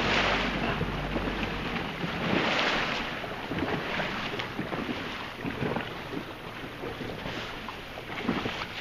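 Wind buffeting the microphone in gusts, with water splashing and sloshing around a small boat on the open sea.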